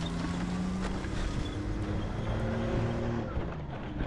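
A steady mechanical hum of several pitches, which sags in pitch about three and a half seconds in.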